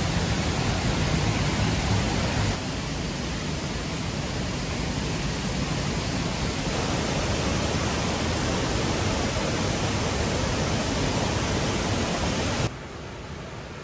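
Steady rushing roar of a waterfall and its rocky stream. It drops in level twice, about two and a half seconds in and again near the end.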